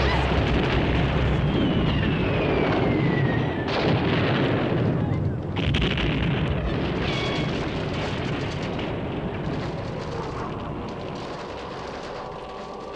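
Dense, loud noise with a deep rumble, like an explosion or fire sound effect. A high tone glides down a couple of seconds in, and the noise shifts abruptly twice before slowly fading, as steady tones come in near the end.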